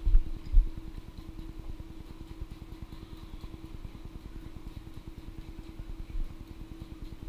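A steady low hum, with a few dull thumps in the first second.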